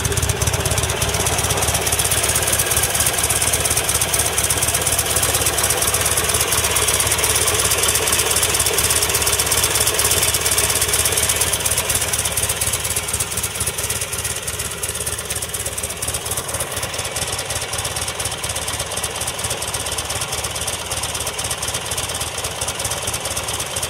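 Buell XB12STT Lightning Super TT's 1203 cc air-cooled V-twin idling steadily, a little quieter from about twelve seconds in.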